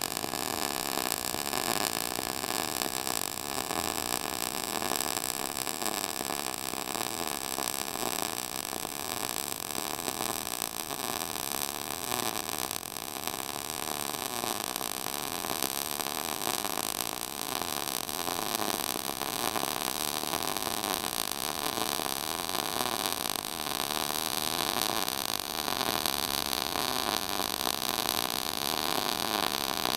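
MIG welding arc from a Lincoln Electric hobby welder shielded with C25 (75% argon, 25% CO2) gas, laying one continuous bead. It makes a steady, unbroken hiss.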